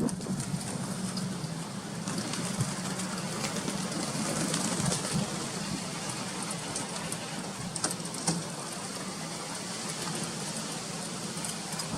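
Steady rushing noise of strong wind, with a few faint ticks.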